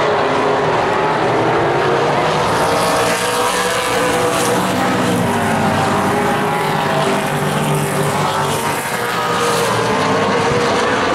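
Several Late Model stock cars racing on a short oval, their V8 engines running hard together. Their pitch rises and falls as they lap through the turns.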